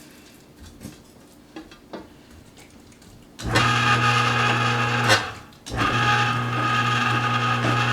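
Cabela's Carnivore 3/4 HP electric meat grinder switched on about three and a half seconds in, running empty with a loud steady hum. It cuts off for a moment after about two seconds, then runs again. A few light knocks come before it starts.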